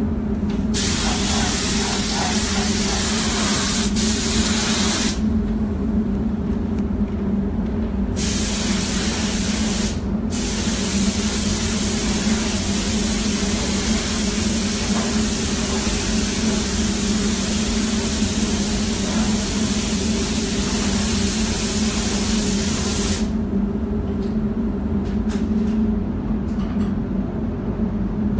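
Compressed-air paint spray gun hissing in three bursts as the trigger is pulled, laying down the first coat of paint on a car body. The last burst is long and stops a few seconds before the end. A steady low hum runs underneath.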